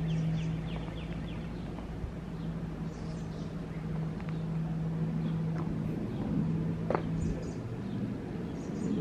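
Songbirds singing: a quick run of short high chirps in the first second, then scattered chirps and calls, over a steady low hum.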